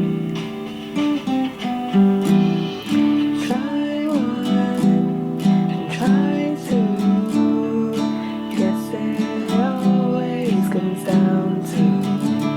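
Music: strummed guitar chords, with a higher melody line that slides and bends between notes.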